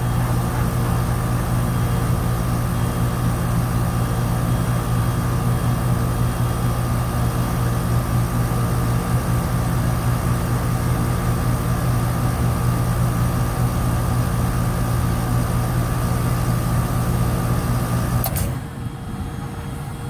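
Old York 3.5-ton R22 heat pump outdoor unit running with a steady compressor hum, then a sharp click about eighteen seconds in as the unit cuts out and the hum stops: the high-pressure switch tripping on high head pressure.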